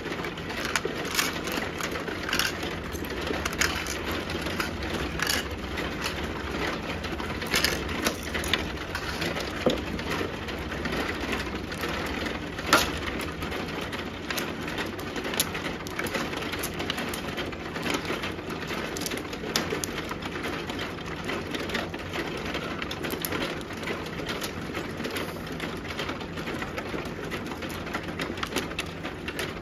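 Mahjong tiles clacking on an automatic mahjong table as players draw and discard: irregular sharp clicks of tile on tile and tile on felt, one louder clack about halfway through, over a steady low background noise.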